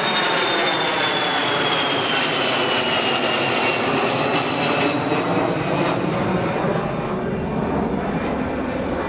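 Kawasaki C-1 twin-turbofan military transport flying past low in a display. Its engine whine falls steadily in pitch as the aircraft goes by, over a broad jet rush that eases a little toward the end.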